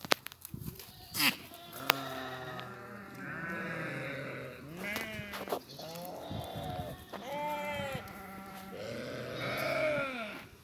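Several goats bleating, their calls overlapping one after another, with a few sharp knocks in the first two seconds.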